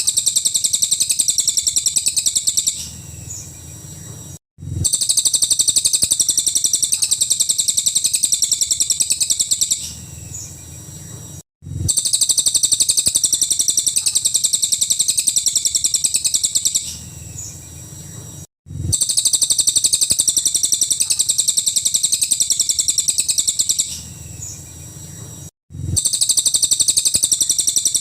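Cililin singing a fast, high-pitched trill of rapid repeated notes in stretches of about three seconds. Each stretch is followed by a quieter pause with a short dead gap, and the pattern repeats about every seven seconds, as a looped recording does.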